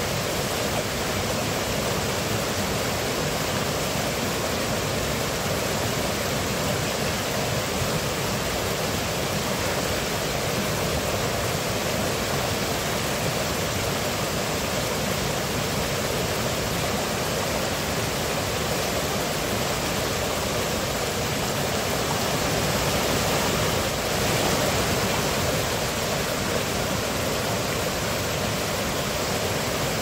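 Rocky forest stream rushing over boulders and stones in small cascades: a steady sound of running, splashing water, a little louder for a few seconds late on.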